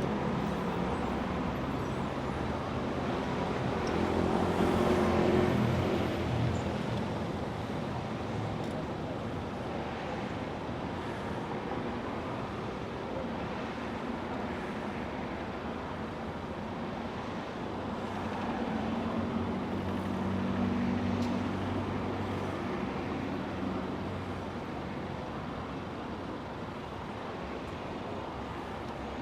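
Steady city street traffic: a continuous wash of engines and tyres, with vehicles passing close about five seconds in and again about twenty seconds in.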